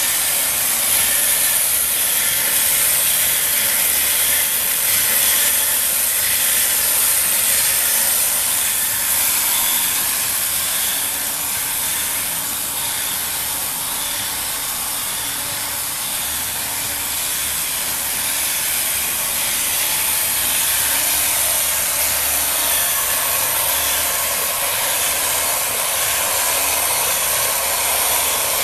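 Battery-powered wooden kinetic sculpture running, its small electric motors and moving parts giving a steady hissing whir. The sound dips slightly in the middle and rises again.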